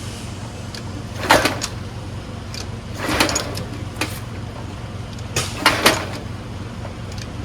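Recoil pull-starter of an old gas pressure washer engine being yanked several times. Each pull gives a short rasping whirr of cord and cranking, and the engine does not catch. The owner says the pull feels and sounds funny.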